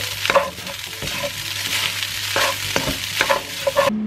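Leftover rice sizzling in a frying pan as garlic fried rice (sinangag), with a spatula scraping and knocking against the pan as it is stirred. The sizzle stops abruptly near the end.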